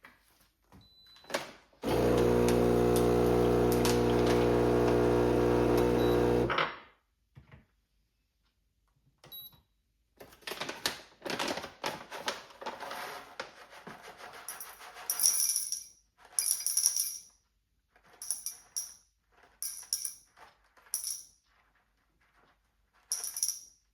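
Espresso-making equipment at work: an electric motor hums steadily and evenly for about four and a half seconds, then cuts off. After a pause come a run of separate metal clicks, knocks and bright clinks as the coffee gear is handled.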